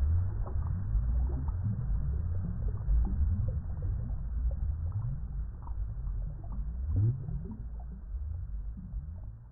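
Water bubbling in a deep, low gurgle, with many short bubble pops that each rise quickly in pitch. It grows slowly quieter toward the end.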